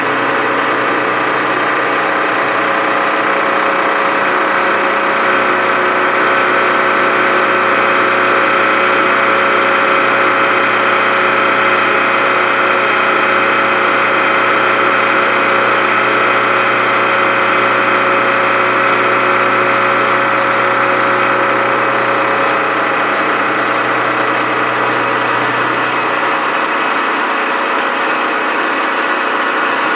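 Milling machine running, its end mill cutting a slot through a metal ring clamped in a vise: a steady machine whine and cutting noise with the hiss of a coolant mist spray.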